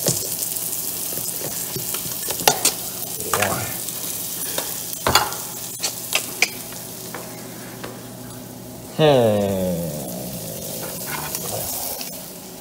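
Steak sizzling in a hot frying pan, with sharp clicks and scrapes of a utensil stirring the meat. About nine seconds in, a loud sound slides down steeply in pitch.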